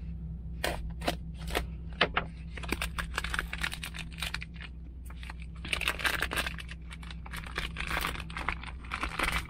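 Plastic food packaging being handled and opened, crinkling and rustling with many short clicks and ticks: sparse at first, then denser crackling from about two and a half seconds in. A steady low hum runs underneath.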